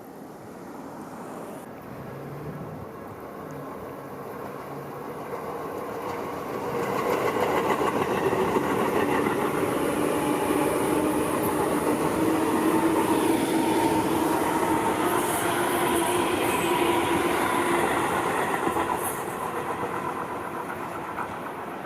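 Tobu Tojo Line electric train running past: the noise builds over the first several seconds, stays loud through the middle with steady tones running through it, and fades toward the end.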